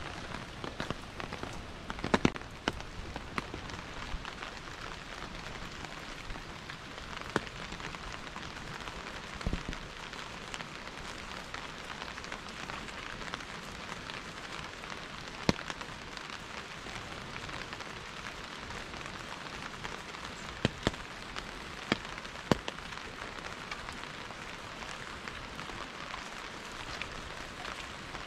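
Steady rain falling, an even hiss, with a few sharp, louder taps scattered through it.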